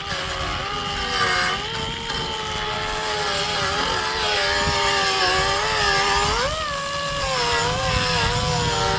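Small high-speed power tool running continuously while deburring a trimmed part, its whine wavering up and down as the bit is pressed against the work and eased off, with a brief rise in pitch about six and a half seconds in.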